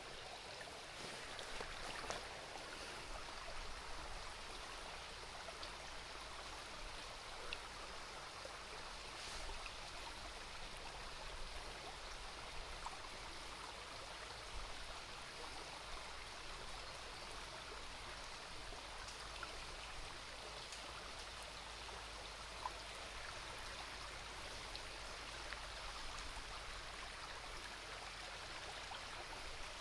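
Shallow forest stream running over stones: a steady rush of flowing water with small splashes now and then.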